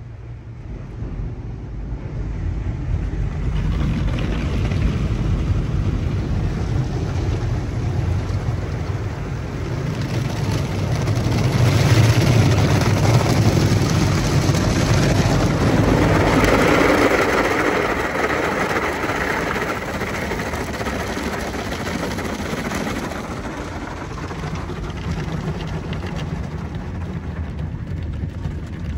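Ryko SoftGloss MAXX soft-touch automatic car wash heard from inside the car's cabin: water spray and cloth brushes scrubbing over the windshield, over a low steady hum. It builds from about a second in, is loudest in the middle and eases off toward the end.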